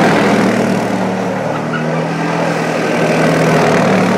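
Suzuki KingQuad 750 ATV's single-cylinder engine running under throttle at fairly steady revs as the quad spins circles on snow and ice.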